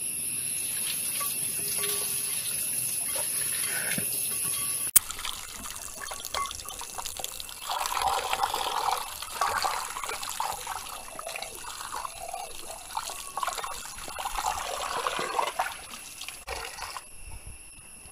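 Tap water running into a pot while hands wash a whole raw chicken in it, then swish green chillies in the water. A steady rush of water gives way, with a sharp click about five seconds in, to uneven splashing and sloshing, loudest in the middle.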